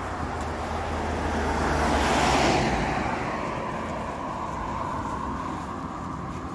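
Road traffic on a busy dual carriageway: a car passes close by about two seconds in, its tyre and engine noise swelling and then fading over a steady traffic hum.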